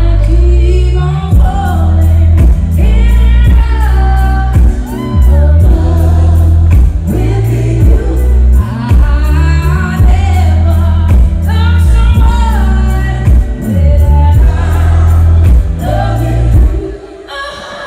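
Live music: a woman singing lead at a piano, with backing singers, over heavy bass and a steady beat. The band drops out briefly near the end.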